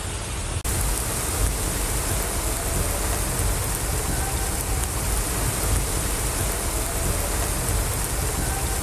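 Heavy rain falling steadily over floodwater running in the street. About half a second in, the noise dips briefly and changes in tone where the recording cuts.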